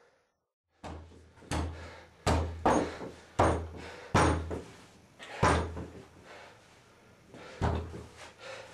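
Heavy banging on a door: about eight loud, irregular thuds and bangs, starting about a second in, the last one near the end.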